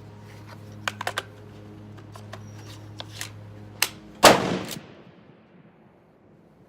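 A single shot from a Blaser Tactical 2 straight-pull rifle in 5.56, firing 55-grain brass-cased ball ammunition, about four seconds in, with a short ringing tail. Before it come a few small sharp clicks, three of them in quick succession about a second in.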